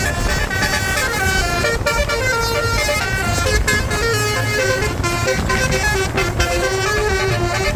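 A bus's basuri telolet horn, a multi-trumpet musical air horn, playing a tune of held notes that step up and down, over a steady low engine and road rumble.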